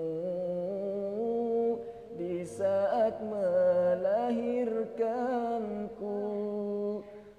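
A man singing an Indonesian song about a mother, unhurried, holding long notes that waver and bend in ornamented runs, with a brief breath about two seconds in.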